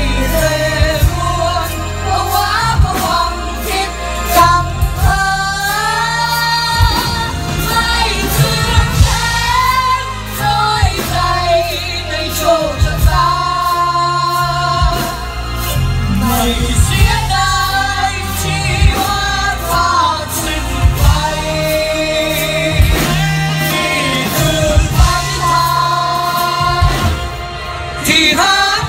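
A live band with many drum kits playing a song, with singers over steady drum beats and heavy bass, amplified through loudspeakers.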